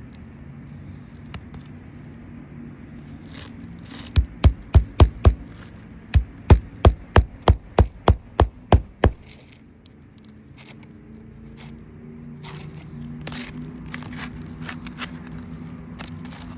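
Hammer driving roofing nails through ridge shingles: two quick runs of sharp blows, about five and then about nine, each run ending as a nail goes home.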